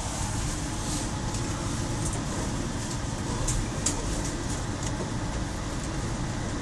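Aeroexpress electric train heard from inside the car, rolling slowly into the station with a steady low rumble of wheels and running gear. A few short sharp ticks sound about halfway through.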